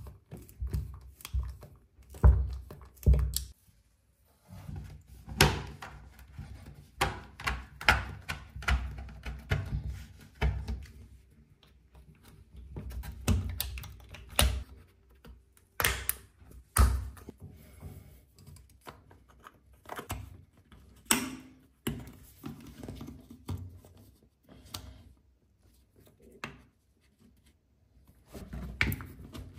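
Irregular taps, clicks and knocks of hands and tools working on plastic and aluminium shower trim against tiles, with short pauses between.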